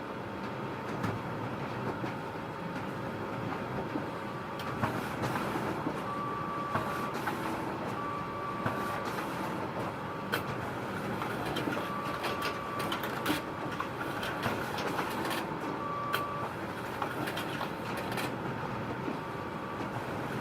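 Photocopier running: a steady mechanical hum with scattered clicks and several short high tones, each about a second long.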